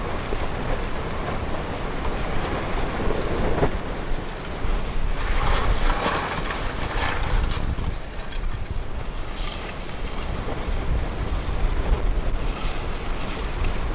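Strong wind buffeting the microphone: a rushing noise with a heavy low rumble, swelling in a stronger gust about five to seven seconds in.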